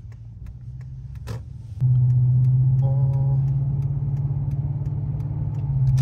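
Toyota Celsior V8 heard from inside the cabin through an aftermarket straight-through rear muffler: a low, steady exhaust drone that jumps suddenly much louder about two seconds in as the car is put under throttle, and holds there. Faint regular ticking runs underneath.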